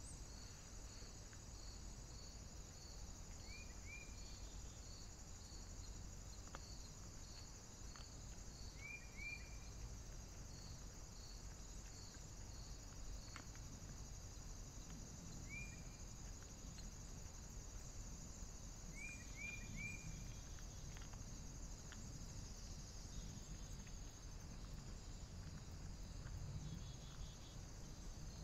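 Faint woodland insect chorus: steady high chirring, with a cricket chirping about twice a second that fades out about halfway through. A bird gives short high calls in twos and threes four times.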